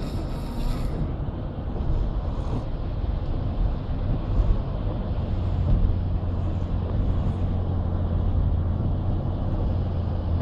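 Road and engine noise inside a moving car's cabin: a steady low drone, with a low hum that grows stronger about halfway through.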